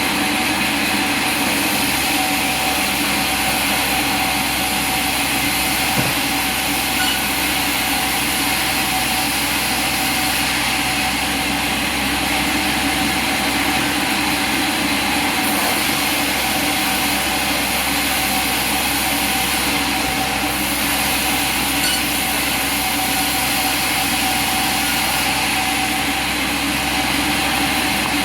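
Sawmill machinery running: a steady, unchanging industrial din with a few held tones in it and no distinct strokes or cuts.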